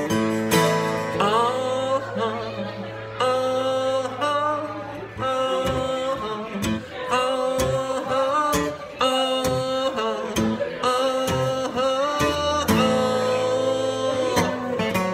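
Instrumental break of an acoustic, country-styled rock song: guitar playing a riff of bent and sliding notes, over a held low note for the first few seconds.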